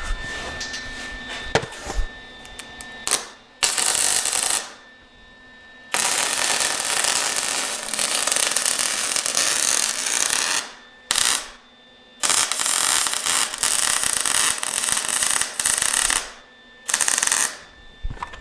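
Arc welding in short runs: a dense crackle that starts and stops abruptly about five times, the longest runs lasting about four to five seconds, as a head is welded onto a bolt.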